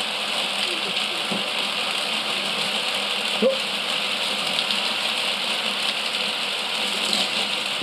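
Motorised Mould King 11012 building-block roller coaster running, with a steady mechanical rattle from its motor-driven lift and plastic cars on the track.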